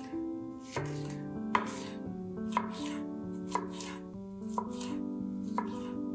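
Chef's knife slicing a yellow bell pepper into strips on a wooden cutting board, each cut ending in a sharp knock of the blade on the board, about once a second. Soft background music plays under it.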